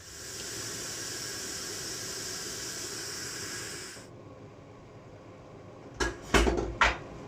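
Steady steam hiss from a pot of bean stew at the boil, stopping abruptly after about four seconds. Near the end come three loud, sharp clattering knocks of pot and lid.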